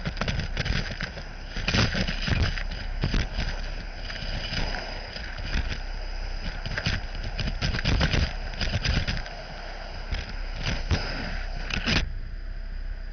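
Gutter vacuum nozzle sucking debris out of a roof gutter: a steady rush of air with a high whine, and irregular knocks and rattles as grit and dirt are pulled up the pole. The rushing drops off about a second before the end.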